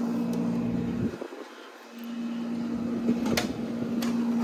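1970 Gibson window air conditioner running, its Bendix reciprocating compressor and fan giving a steady hum over blower noise. The hum drops out briefly just after a second in, and two light clicks come near the end.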